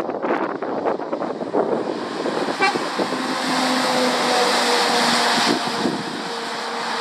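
A road vehicle passing on a wet road: tyre spray hiss swells to its loudest about four to five seconds in, over a steady droning engine note. Wind buffets the microphone in the first couple of seconds.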